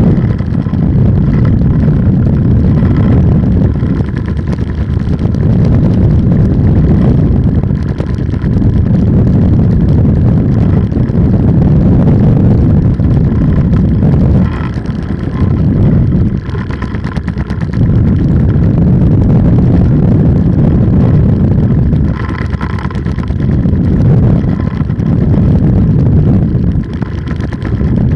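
Polini 190 single-cylinder two-stroke engine running on an ultralight trike, heard as a loud, low, noisy rumble. The level dips briefly several times.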